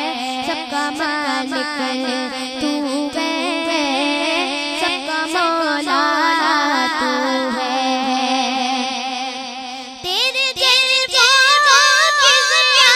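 Unaccompanied Urdu hamd singing: an ornamented, gliding vocal melody over a steady sustained tone. About ten seconds in it dips briefly, then a girl's voice comes in louder and closer to the microphone.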